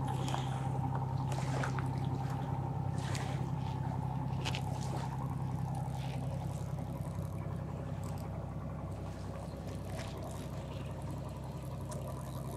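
Steady low drone of a river boat's engine, holding even throughout, with a few faint clicks over it.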